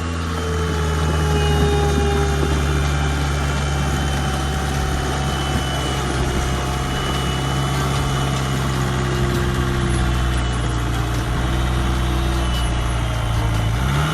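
Excavator's diesel engine running at a steady speed. Its pitch drops slightly at the start and rises again near the end.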